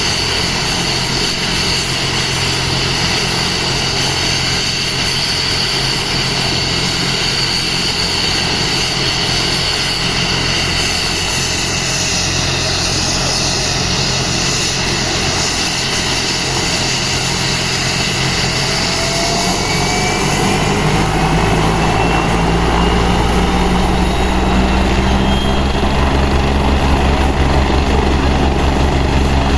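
Air ambulance helicopter's turbine engines and rotor running steadily. From about twenty seconds in, a whine rises in pitch and the low rotor beat grows louder as it builds power for takeoff.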